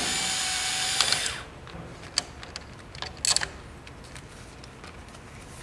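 Power driver with a 10 mm socket spinning out a bolt that holds the factory diverter valve, running steadily for about a second and a half. Then a few light metallic clicks and knocks as the bolt and valve are handled.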